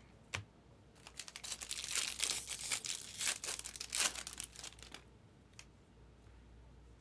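Foil wrapper of a baseball card pack being torn open and crinkled by hand, a rustling crackle that starts about a second in and stops about five seconds in.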